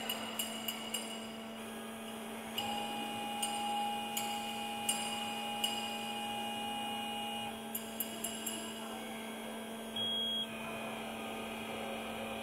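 Hot wire foam cutting machine running as its wire feeds into a foam block. A steady electrical hum carries a higher motor whine for about five seconds in the middle, with scattered light ticks, and a short high tone about ten seconds in.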